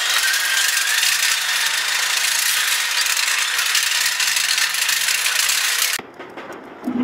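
Roller coaster ride heard from on board: a steady loud rush of wind on the microphone with the rattle of the coaster train, cutting off abruptly about six seconds in.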